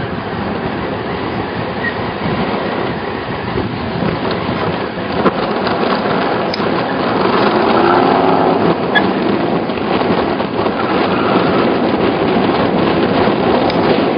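Steady rumbling wind noise on the microphone. Under it, a car engine is faintly heard rising and falling around the middle as the Pontiac Firebird Formula moves off slowly after its spin.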